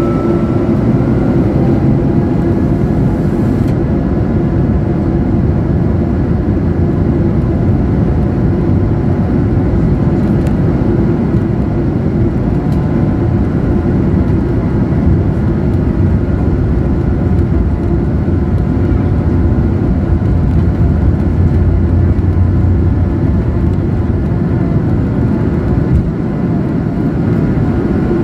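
Airbus A220-100's Pratt & Whitney PW1500G geared turbofans at takeoff power, heard inside the cabin behind the wing: the engine tones finish rising in the first second, then a loud steady running with runway rumble through the takeoff roll. The rumble eases near the end as the aircraft lifts off.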